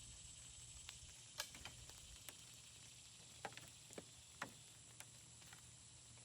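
Faint, scattered clicks and taps, about eight over six seconds, from a tree-stand hunting platform and its hardware being handled and unfolded, over a steady high-pitched insect drone.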